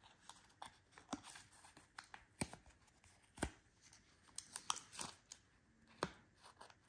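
Faint handling noise of a Ridge wallet being reassembled by hand: its plates click and tap at irregular moments as they are fitted into the elastic strap, with light rubbing and rustling between the clicks.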